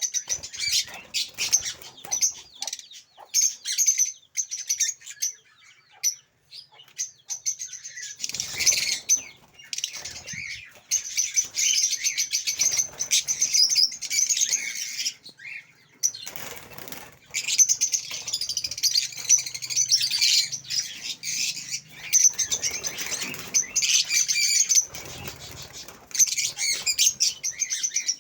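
A colony of caged lovebirds chattering in shrill, rapid chirps almost without pause, with a few bursts of wing flapping.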